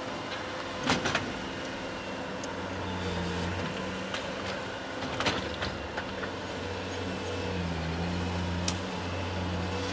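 A small slide hammer clamped to locking pliers jerks metal clips out of styrofoam pool coping with a few sharp metal clacks: two about a second in, one near the middle and one near the end. Each stroke snaps a clip off at the weak point left by its screw. Beneath them an engine runs steadily.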